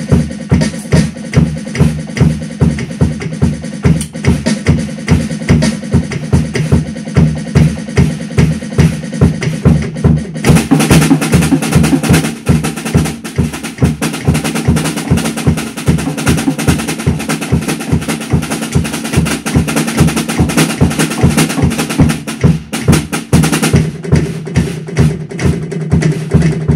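Drum kits playing a steady beat: a Ludwig acoustic kit and an Alesis electronic kit. From about ten seconds in to about twenty-three seconds the playing turns busier and brighter, heavy on cymbals, then drops back to the plainer beat.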